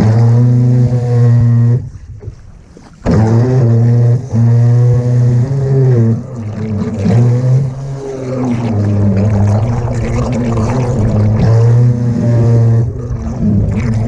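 Remote control fishing boat's motor running at speed, heard from a camera on the boat itself, as a steady pitched drone with water rushing past. It cuts out for about a second some two seconds in, then picks up again.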